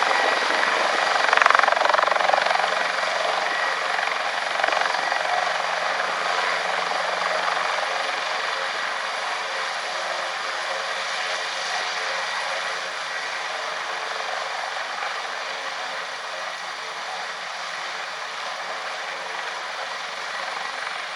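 Airbus H225M Caracal helicopter's twin turbines and rotor running with a steady whine, growing slowly fainter.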